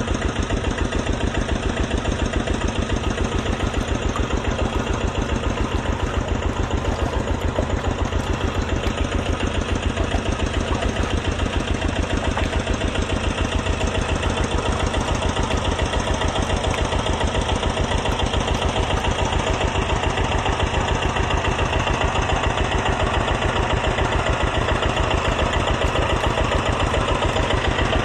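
Small diesel engine, like that of a diesel water-pump set, running steadily at idle with a fast, even chugging.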